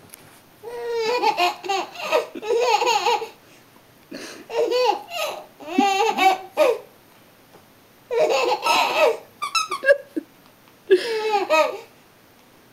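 A baby laughing hard, cracking up in four bursts of rapid, high-pitched belly laughter separated by short pauses.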